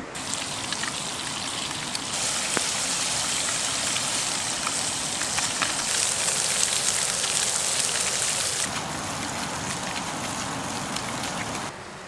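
Fish frying in butter in a pan: a steady sizzle sprinkled with small crackling pops. It grows louder about two seconds in and eases off a little near the end.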